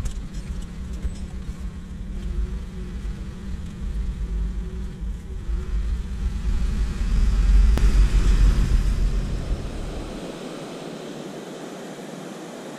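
A car driving slowly over a rough gravel track and into a shallow stream ford: a low rumble of engine and tyres on stones, loudest as it goes through the water. About ten seconds in it cuts to the steady rush of a fast-flowing mountain river.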